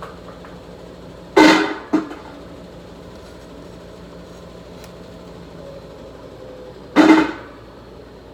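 Three loud knocks of kitchen cookware, two close together about a second and a half in and one near the end, each with a short ringing tail, over a steady background hum.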